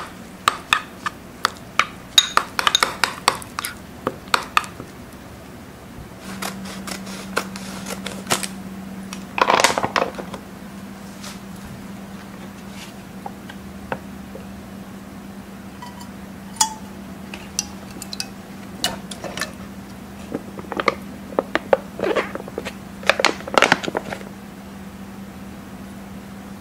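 A metal spoon clinking and scraping against a ceramic bowl while stirring chili powder into gochujang, then clinking against a stainless steel pot while spooning the paste in. About six seconds in, a steady low hum starts and keeps going, and a short burst of noise comes near ten seconds.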